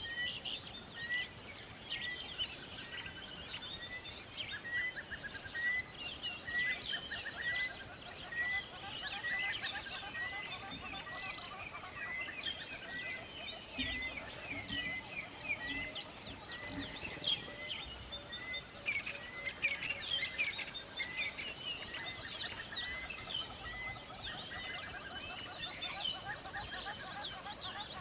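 Forest birds singing in a dense chorus of chirps and trills, with one bird repeating a short, even note about once every three quarters of a second.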